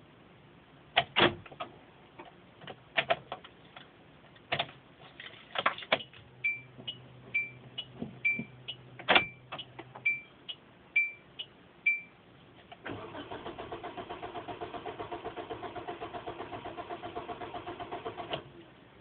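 Clicks and knocks and a car's warning chime beeping about twice a second, then the starter cranking the engine in a fast steady rhythm for about five seconds and stopping without the engine catching: a car that will not start.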